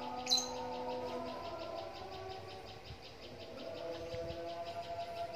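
Insects chirping in a fast, even pulse of about eight beats a second over a low steady hum of held tones, with one short sharp chirp about a third of a second in.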